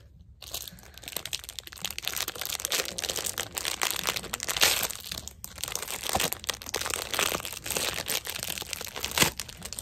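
Clear plastic wrapper crinkling and rustling as it is handled and worked open around a water-bead squishy toy, starting about half a second in and going on as a dense run of crackles.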